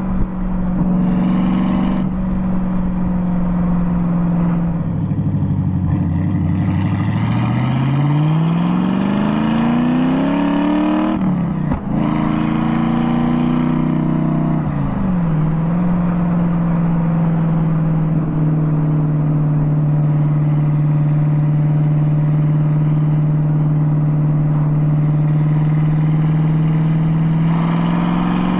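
TVR Chimaera 450's V8 engine and exhaust on the move, picked up by a microphone on the outside of the car at the number plate. It holds steady revs at first, drops off about five seconds in, then the revs climb steadily for several seconds under acceleration. After a brief break about eleven seconds in, it settles back to a long steady cruise around fifteen seconds in and picks up again near the end.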